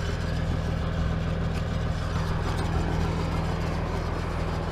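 Tractor engine idling steadily, a low even hum with no change in speed.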